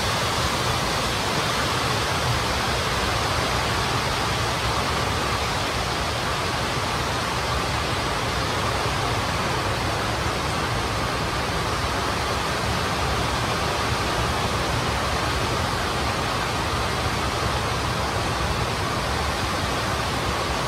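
A steady, even rushing hiss with no breaks or changes.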